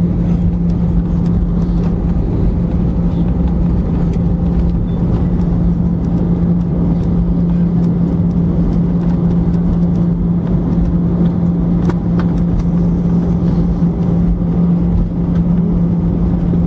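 Airbus A319 airliner's engine and airflow noise, steady and unchanging, with a constant low hum and a few faint ticks scattered through.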